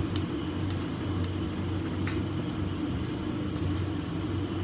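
Bacon frying in a pan on a gas burner, with several sharp pops of spitting fat in the first two seconds over a steady low hum.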